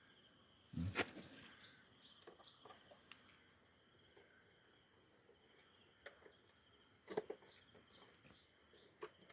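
Faint steady high-pitched chirring of crickets or similar insects, with a few short clicks and knocks from hand work on the wiring.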